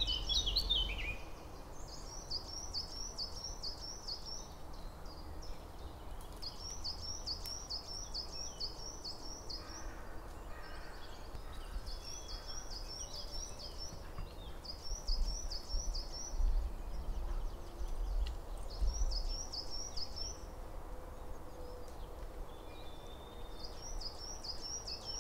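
A small songbird sings the same short phrase of five or six quick, high, evenly spaced notes, repeated about six times with pauses between, over a faint low outdoor rumble.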